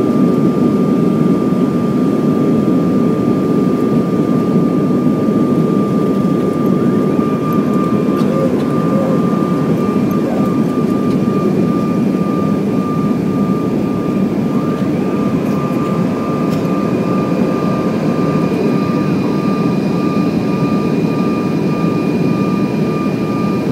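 Steady cabin noise of a CRJ1000 jet airliner in flight: a dense rush of airflow and turbofan engines with a steady high whine over it. A second, higher whine joins about ten seconds in.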